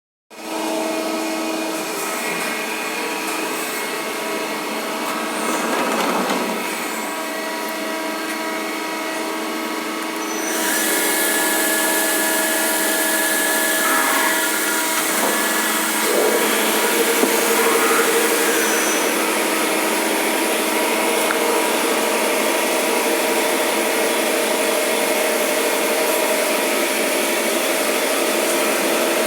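CNC machine running steadily with a hum of several steady tones. About ten seconds in, a loud steady hiss joins and continues.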